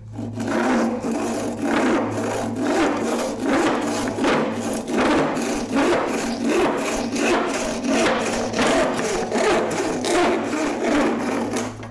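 Crosscut hand saw cutting across an old painted pine board in steady back-and-forth rasping strokes, about two a second.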